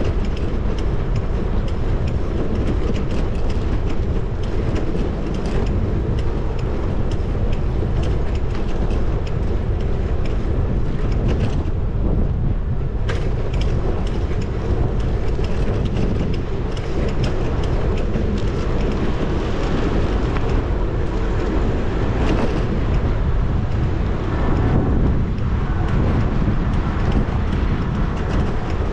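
Steady wind and road rumble on a bicycle-mounted action camera's microphone while riding through city streets, with scattered short rattles and clicks from the bike and passing traffic.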